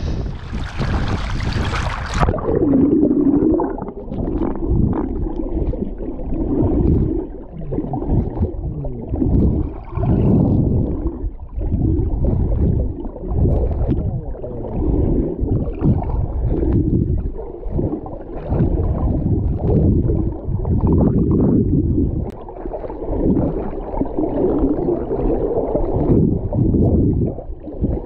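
A short burst of splashing noise in the first two seconds, then muffled, irregular sloshing and gurgling of water with the high end cut off, as picked up by a camera held underwater.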